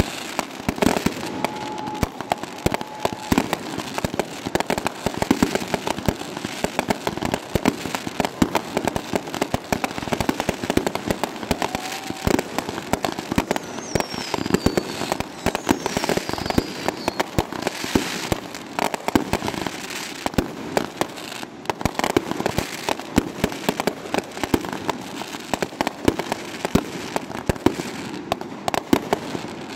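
Fireworks going off in rapid succession: a continuous barrage of bangs and crackling pops, with a couple of faint falling whistles about halfway through.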